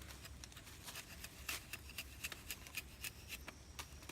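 Rubber-tapping knife cutting a groove in the bark of a rubber tree, heard as light, fairly regular clicks about four to five a second.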